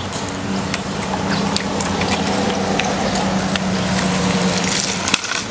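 Small plastic wheels of a child's three-wheeled kick scooter rolling along a concrete sidewalk: a steady drone with scattered small clicks, which breaks off near the end.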